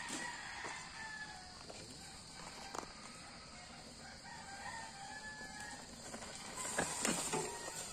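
A rooster crowing several times over a steady high hiss. Near the end, a mountain bike rolls close past on a gravel dirt track, making a brief louder rush of tyre noise.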